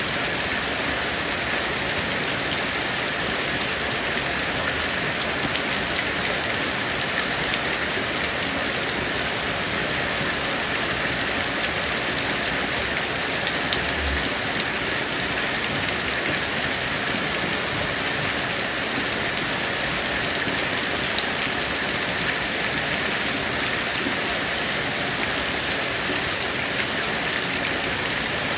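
Heavy rain falling steadily, a continuous even hiss of drops on surfaces.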